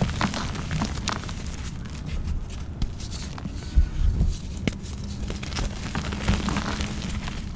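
Hands crushing and squeezing soft, crumbly blocks of gym chalk and packed baby powder and cornstarch. The sound is a steady soft crunching and crumbling with scattered sharper crackles, the loudest about halfway through.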